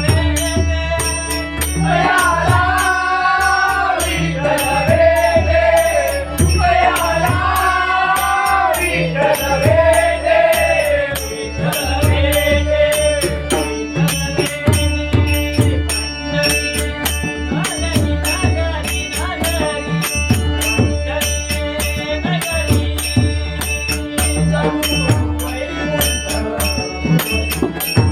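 A devotional bhajan: a singer's voice over pakhawaj drumming and a steady, fast beat of jingling percussion, with held drone tones beneath. The sung phrases fill roughly the first ten seconds, then the drums and percussion carry on alone.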